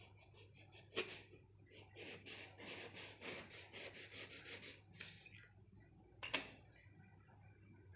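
Kitchen knife slicing a brinjal (eggplant) into thin slices: a sharp knock about a second in, then a run of quick rasping slicing strokes, about three a second for some three seconds, and another sharp knock a little after six seconds.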